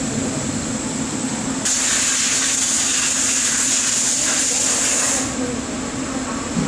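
Steady workshop machinery hum with a thin high whine, overlaid for about three and a half seconds in the middle by a loud, even hiss that starts and stops abruptly.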